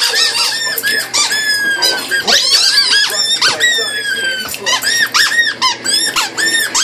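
Squeaky chicken dog toy squeaking over and over in quick short squeaks as a dog chomps on it, with a couple of longer drawn-out squeaks that sag in pitch a few seconds in.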